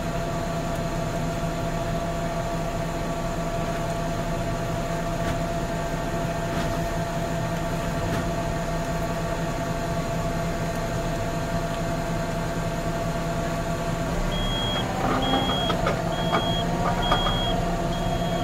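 Tractor engine running steadily under load, powering a grain bag extractor as it winds in a grain bag while the tractor sits in neutral. About 14 seconds in the drone grows heavier and a series of short, evenly spaced high beeps starts, a little over one a second.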